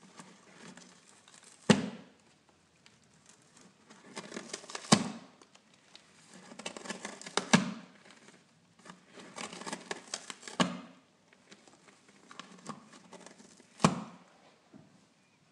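A kitten scratching and clawing at the floor of a cardboard box, with stretches of scratching and crinkling broken by about five sharp knocks, roughly every three seconds.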